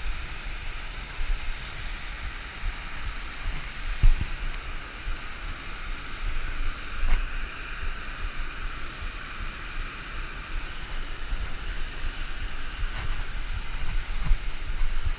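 Steady rush of a river and waterfall, with wind buffeting the microphone and a few low knocks, the loudest about four seconds in.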